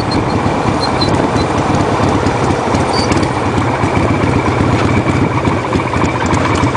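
A vehicle engine running steadily at road speed, with wind rushing over the microphone.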